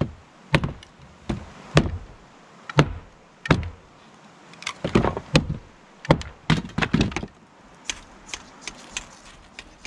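Hatchet splitting kindling: a series of sharp, irregular wooden knocks as the hatchet and stick are struck down against a wooden deck, with lighter, quicker taps near the end.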